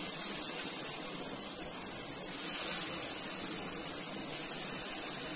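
Raw chicken pieces sizzling in hot oil and pepper masala in a frying pan: a steady hiss that swells a little about two and a half seconds in.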